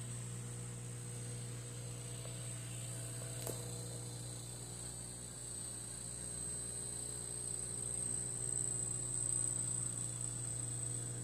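Steady electrical hum of an aquarium filter's mains-powered return pump, with a thin, high, steady whine above it. A faint click comes about three and a half seconds in.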